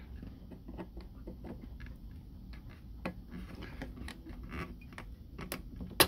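Screwdriver turning a stuck terminal screw on a duplex wall outlet: irregular small metal clicks and ticks as the tip works the screw and the outlet shifts in the hand, with a few sharper clicks.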